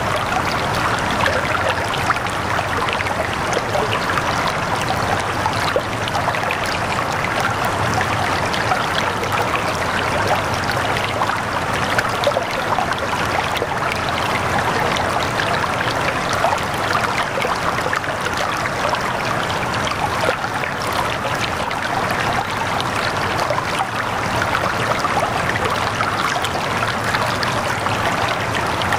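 Steady running water, an even babbling rush like a stream or fountain, with no change throughout.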